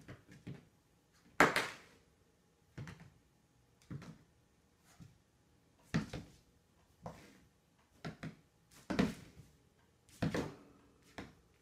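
A playing puppy's paws hitting a vinyl-tiled floor as it hops and pounces: irregular thumps and knocks, roughly one a second, the loudest about a second and a half in.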